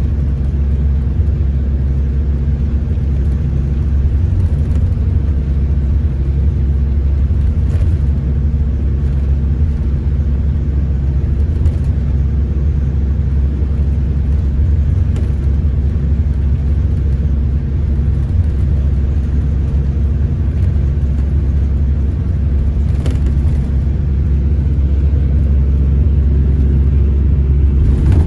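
Scania Irizar Intercentury coach in motion, heard from inside the passenger cabin: a steady low rumble of diesel engine and road noise with a constant engine hum, getting slightly louder near the end.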